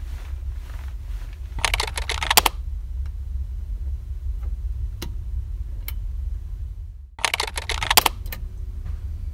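Steady low drone of the ferry's engines, with two short bursts of rustling and clicking handling noise and a single sharp click about five seconds in, the bunk light's wall switch being pressed.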